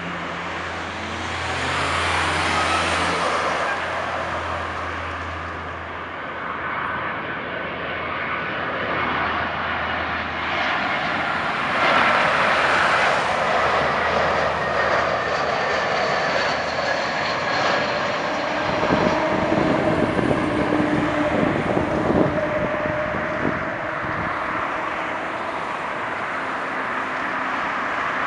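Airbus A320-200 jet engines on landing approach: a steady rushing noise with a thin whine on top. It grows louder as the airliner passes close, and the whine slides slightly down in pitch as it goes by.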